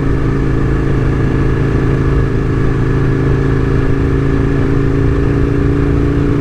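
Aprilia RSV1000's 60-degree V-twin engine running at a steady cruising speed, its pitch holding level.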